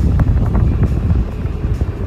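Rumbling road and wind noise from a moving vehicle, with wind buffeting the microphone, over music.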